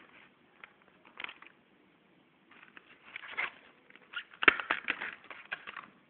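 An HDMI cable and its clear plastic packaging being handled: scattered clicks and crinkles, with a dense run of sharp clicks about four and a half seconds in.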